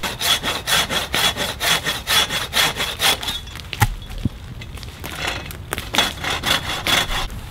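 Hand pruning saw cutting through a tree branch overhead in quick back-and-forth strokes, about four a second. The sawing pauses for about a second and a half midway, with a single knock, then starts again.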